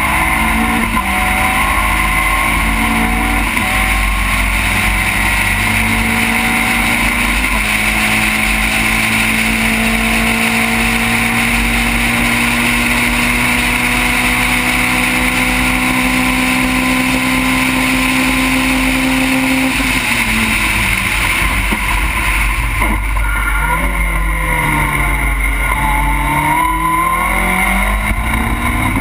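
Onboard sound of an open-cockpit race car's engine at full throttle, its pitch climbing steadily through a long pull. About two-thirds in it drops away, then rises and falls unevenly as the car lifts off and shifts down. Wind rushes over the open cockpit throughout.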